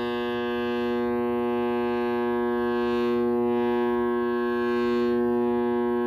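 Failing furnace blower motor running with a loud, steady electrical buzz, over an airy whoosh that swells and fades about once a second; the buzz is the sign of the bad blower motor.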